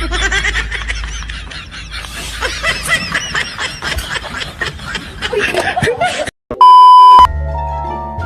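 People snickering and laughing for about six seconds. Then, after a brief cut to silence, a loud steady beep lasting about half a second, followed by background music with a bass line.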